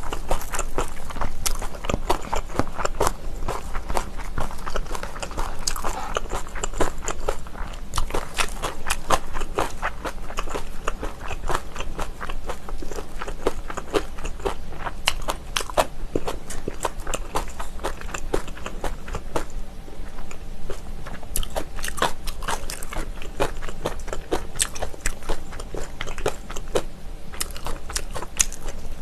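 A person chewing and crunching crisp kimchi, with many sharp crunches packed closely together and no pause.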